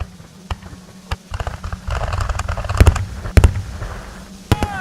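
Fireworks going off: scattered sharp bangs and crackling that thicken about a second in, with two loud bangs in the middle.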